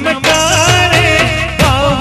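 Dandiya raas folk music: a fast, steady drum beat under a wavering melody line.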